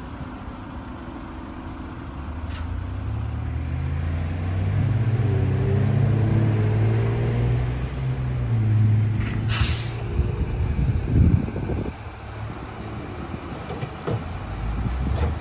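Mack LR front-loader garbage truck's engine running louder as it approaches and pulls up. A short, sharp air-brake hiss comes near ten seconds in as it stops, followed by quieter idling with a few low clunks.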